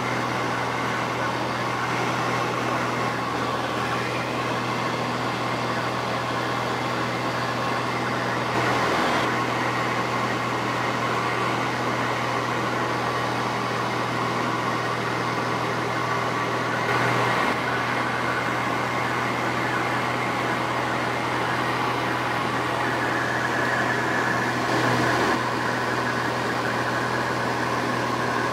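Steady cabin drone of a light aircraft's engine and propeller in flight: a low hum with a few steady higher tones. It briefly swells a little louder three times.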